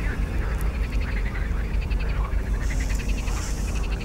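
Frogs croaking in short trains of rapid rattling pulses, several times over, above a steady low rumble.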